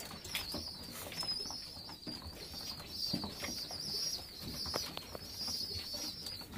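Homing pigeons in a loft cooing and shuffling, with scattered clicks and a few wing flaps, over a steady, wavering high-pitched whine.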